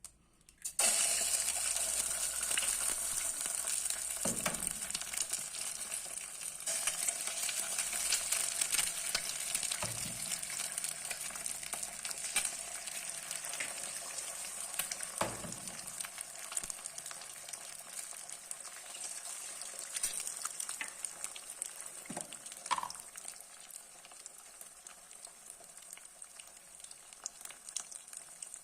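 Food sizzling in hot oil in a pan: the sizzle starts suddenly about a second in, loudest at first, then slowly dies down, with a few knocks scattered through it.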